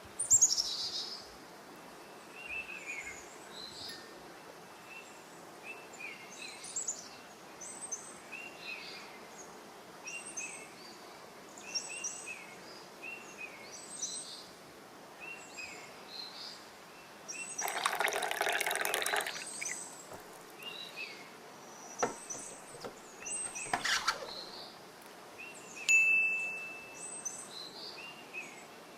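Birds chirping over and over in the background. There is a two-second burst of rushing, liquid-like noise around the middle, a couple of sharp clicks, and a short ringing clink near the end.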